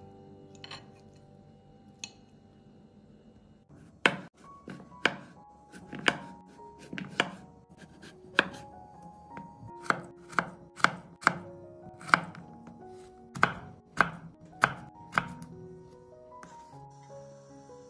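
A kitchen knife cuts peeled raw potatoes on a wooden cutting board, slicing and then dicing them. The blade knocks on the board about one or two times a second, unevenly, starting about four seconds in and stopping shortly before the end. Soft background music plays underneath.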